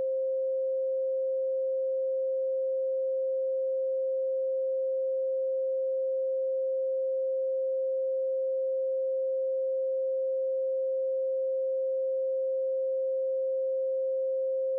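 A pure 528 Hz sine tone, one steady unwavering pitch at constant level with no overtones.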